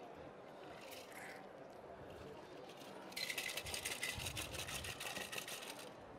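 Cocktail shaker being shaken, a fast, even rattle that starts about halfway through and runs for about three seconds, over faint room background.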